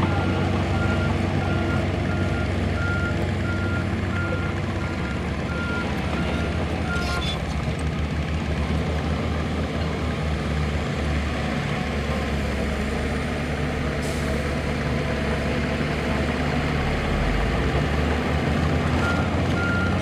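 Heavy earthmoving machinery running, with a reversing alarm beeping steadily at one pitch for the first seven seconds or so and starting up again near the end.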